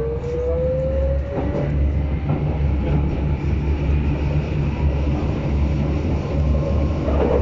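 Berlin U-Bahn class H train pulling away and running into the tunnel, heard from inside the car. A whine rises in pitch over the first second and a half as the train gathers speed, then gives way to a steady low running rumble with a few wheel clicks.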